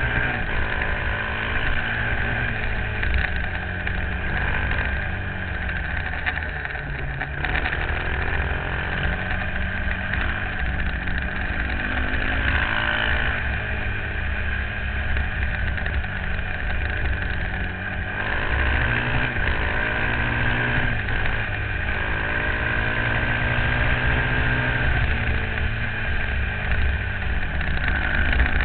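On-board sound of a motorcycle engine running at road speed, its revs rising and falling repeatedly through the bends, over steady wind and road noise.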